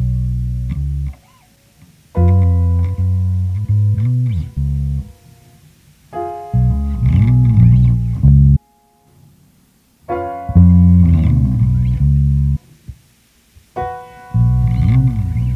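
Experimental instrumental music led by a bass guitar: phrases of low notes with pitch slides, each opened by higher sustained notes and cut off abruptly, separated by short pauses.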